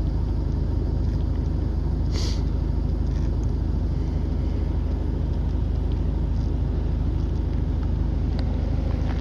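Align T-Rex 600 ESP radio-controlled helicopter spooled up on the pad, its rotor giving a steady low rumble, with one short high click about two seconds in.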